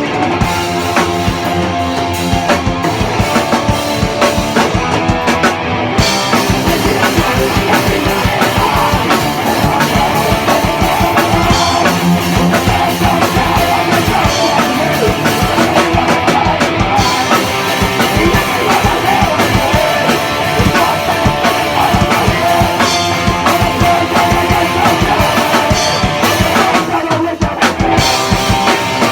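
A rock band playing a fast, loud punk-rock song on drum kit and guitar, with no let-up.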